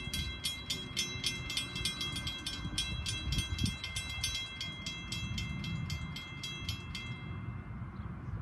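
Railroad crossing warning bells ringing in a fast, even beat, about four strikes a second, while the crossing gates come down. The bells cut off about seven seconds in, with the gates lowered. A low rumble runs underneath.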